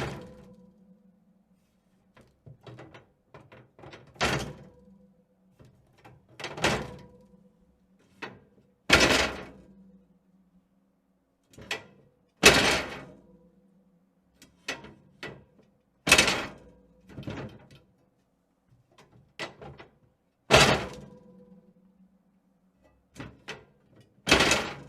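Heavy bangs with echoing tails and a low ringing tone, one every three to four seconds, with lighter knocks and clatters in between.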